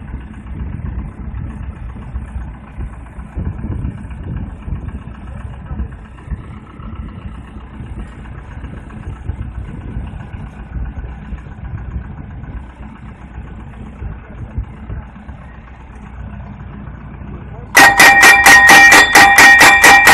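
Low, unsteady engine rumble of the HFPV-1 solar spiral pile rig running. Near the end, loud music with a fast plucked beat cuts in over it.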